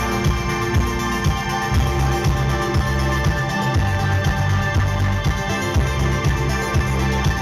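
Live synth-pop music played loud: a steady beat of about two hits a second under held organ-like keyboard chords, heavy in the bass and captured in a poor-quality recording.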